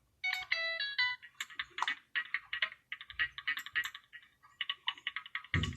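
Apple Loops in Logic Pro X auditioned one after another in quick succession. A few short pitched synth notes come first, then a run of brief, choppy rhythmic loop fragments, each cut off after a fraction of a second as the next one starts. The loops load instantly from an SSD.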